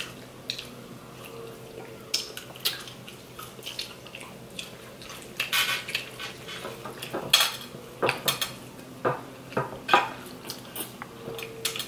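Metal forks clinking and scraping on plates as two people eat pasta, in scattered sharp clicks, louder and more frequent in the second half.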